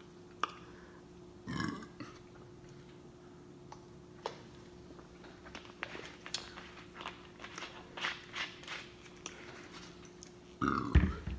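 A woman's close-miked mouth sounds while drinking Coke: a short burp about a second and a half in, then a run of wet lip-smacking and clicks. A louder, deeper burp comes near the end and is the loudest sound, brought up by the fizzy drink.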